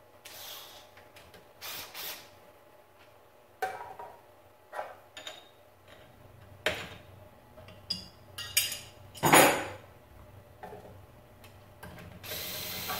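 Hand tools worked at a mill's spindle during a tool change: a string of separate metal clicks, knocks and scrapes as a spanner and the drawbar are worked and the tool holder is freed. The loudest is a clunk about nine seconds in, and a longer rasp comes near the end.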